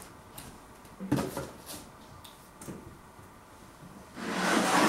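A cardboard pizza box is handled and put down on a kitchen worktop: a few light knocks, the loudest about a second in, then about a second of rougher rustling noise near the end.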